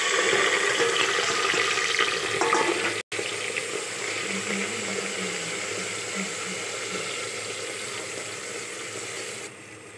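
Sliced onions sizzling in hot oil in an aluminium pressure cooker as they are stirred with a spatula. The sizzle is loudest just after the onions go in, eases off slowly, and cuts off shortly before the end.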